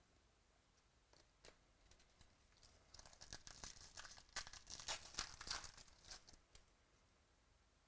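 Foil wrapper of a 2015 Prizm Baseball card pack crinkling and being torn open, a dense crackle lasting about three and a half seconds from roughly three seconds in, after a few faint clicks.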